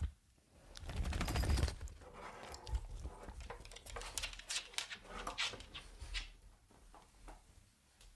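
A French bulldog making close-up sounds: a loud breath about a second in, then irregular small clicks and snuffles for several seconds, fading near the end.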